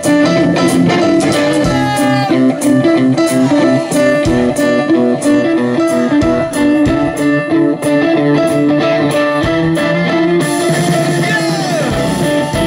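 Live band playing an instrumental passage of a pop-rock song, with guitar to the fore over a steady beat.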